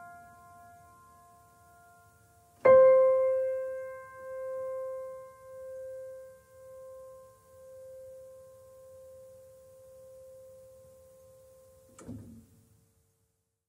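Background piano music ending on a single struck chord about three seconds in. The chord rings out slowly with a wavering, pulsing tone, and a brief soft noise comes just before the sound cuts off near the end.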